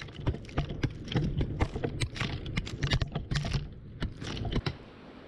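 A mattock chopping into loose red clay soil close by, with clods of earth flung up and pattering down: a fast, irregular run of sharp knocks and scrapes that thins out after about four and a half seconds.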